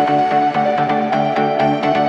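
Electronic dance music with a steady beat and a synth melody.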